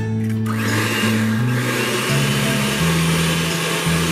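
Electric hand mixer switching on about half a second in and running steadily, its beaters whipping eggs and sugar in a metal bowl.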